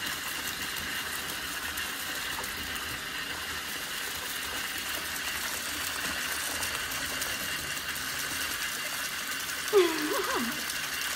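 Steady rush of bath-tap water pouring onto a spinning bubble bar and splashing into a foam-covered bathtub. Near the end a short pitched sound slides down and back up, the loudest moment.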